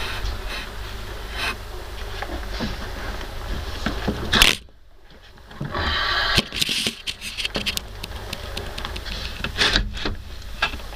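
Irregular scraping and rubbing noises over a steady low rumble, with a loud short burst about four and a half seconds in, then a second of much quieter sound before the scratching resumes.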